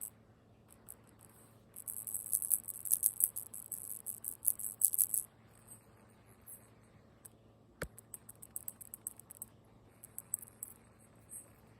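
Light, high-pitched clicking and rattling in two quick flurries, with one sharper single click between them, over a faint steady hum.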